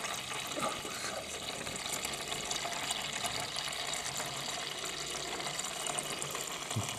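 Steady stream of water pouring from the oil drain hole of a Honda CB750 engine and splashing into a half-full drain pan. The crankcase is full of floodwater: what runs out is pure water, not oil.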